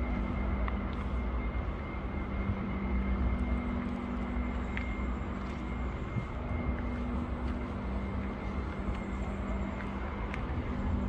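A steady mechanical drone: a low hum with two held tones over a rumbling background, with a few faint ticks.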